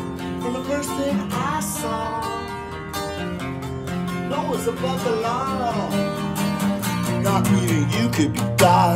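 A man singing, accompanying himself on a strummed acoustic guitar.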